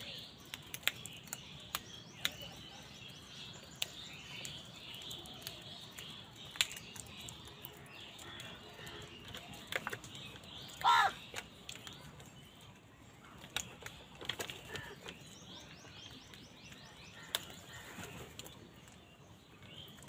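A flock of house crows feeding at a plastic tub: scattered sharp clicks of beaks pecking, and one loud caw about eleven seconds in, over steady high bird chatter in the background.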